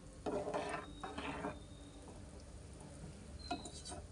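Spatula stirring thin soup in a kadai: two swishing, scraping strokes in the first second and a half, then quieter, with a light click near the end.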